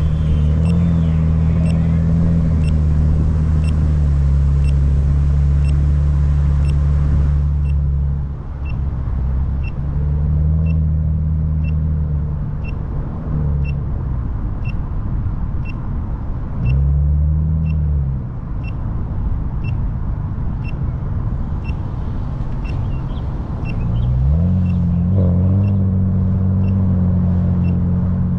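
Car engine and road noise while driving: a steady low drone that dips and climbs again several times as the car slows and speeds up. Throughout, a short high beep repeats evenly, a little more than once a second.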